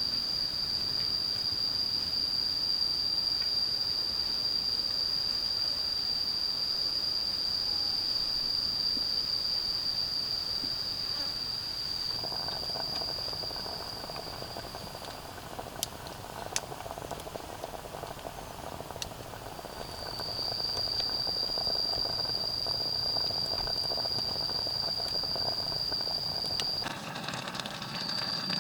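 Cicada chorus in tropical forest: a loud, steady, high-pitched drone that stops about halfway, then starts up again several seconds later. A few sharp ticks fall in the pause.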